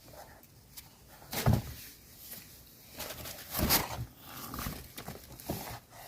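A series of knocks and thumps with rustling in between; the two loudest, deep thuds come about one and a half and three and a half seconds in.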